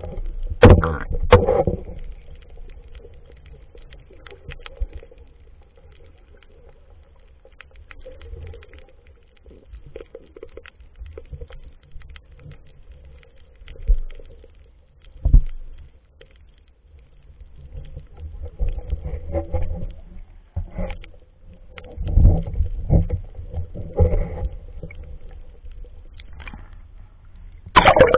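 Underwater sound picked up by a Brica Pro 5 action camera in its waterproof housing: a muffled low rumble of moving water, broken every few seconds by louder knocks and swishes.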